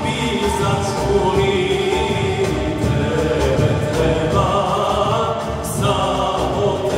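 Men's vocal group singing an Islamic devotional song together, backed by a long-necked lute, a hand drum keeping a steady beat, and keyboard.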